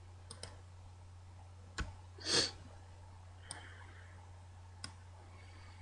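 Several sharp, sparse clicks of a computer mouse, with one short breathy noise about two and a half seconds in, over a steady low electrical hum.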